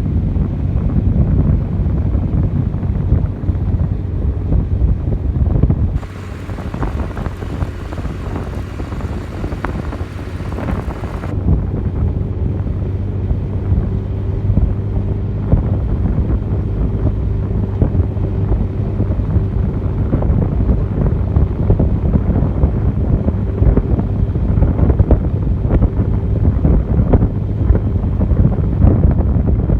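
Heavy wind buffeting on the microphone over a steady low hum, with the sound changing abruptly about six seconds in and again about eleven seconds in.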